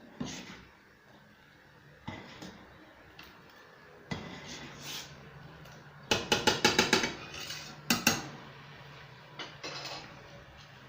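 A utensil clinking and knocking against a cooking pot: a few single knocks, then a quick run of about eight clinks a little after six seconds in, and two more near eight seconds.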